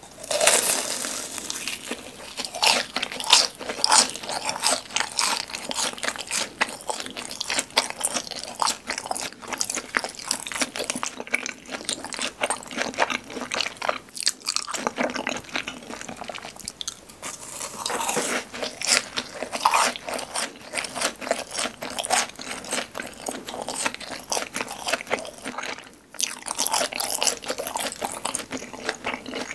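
Close-up crunching and chewing of BHC Bburinkle cheese balls, fried balls with a crisp seasoned shell. A loud crunchy bite comes right at the start, then steady crisp chewing. After short lulls about halfway and near the end, fresh bites crunch again.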